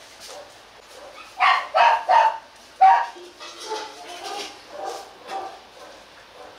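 H'mong bobtail dogs barking: four loud barks in quick succession about a second and a half in, then softer barks.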